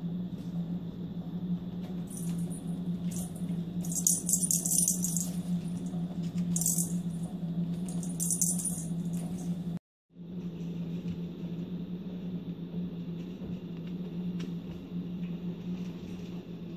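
A kitten's cloth toy rattling in short high-pitched bursts, four or five times, as the kitten bats and bites it, over a steady low hum; the sound drops out completely for a moment near the middle.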